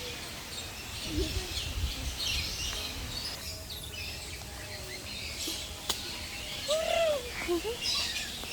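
Several birds chirping in scattered short high calls, with a low rumble underneath; a short arching call sounds about seven seconds in.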